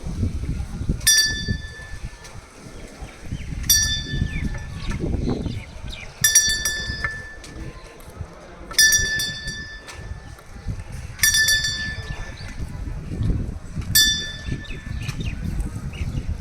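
A small metal bell ringing in a steady rhythm, one clear strike about every two and a half seconds, each ring fading over about a second, over low rumbling noise.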